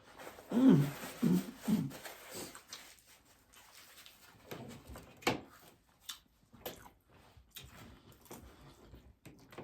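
Someone eating crunchy tacos: scattered sharp cracks and clicks of taco shells being bitten and chewed. Near the start come a few short whining vocal sounds that rise and fall.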